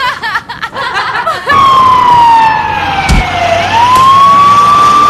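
Fire truck siren wailing: one tone that falls slowly, then rises and holds high. A dull thud comes about three seconds in. Brief laughing comes before the siren starts.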